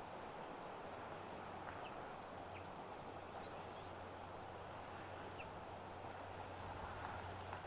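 Faint outdoor ambience: a steady low hum and a soft even hiss, with a few brief, high bird chirps scattered through it.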